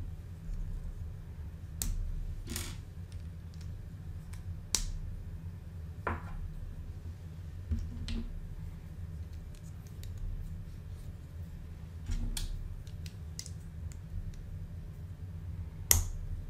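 Plastic Lego bricks being handled and snapped together: scattered sharp clicks and short scrapes every second or two, the loudest click near the end, over a low steady hum.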